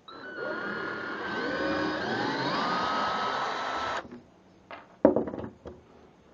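Porter-Cable 18-volt cordless drill driving a screw into a wooden block, its motor whine sliding up in pitch, then stopping suddenly after about four seconds. A few knocks follow, one of them sharp and loud.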